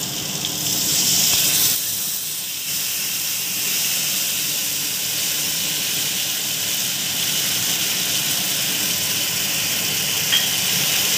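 Tomato and spice masala sizzling steadily in hot vegetable oil in a kadai, the sizzle louder for about a second near the start. A single light tick about ten seconds in.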